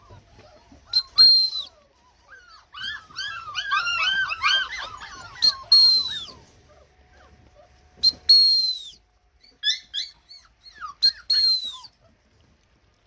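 A litter of young puppies whining and yelping: a chorus of many overlapping short whines about three seconds in, and four loud, high squeals, each dropping in pitch at the end.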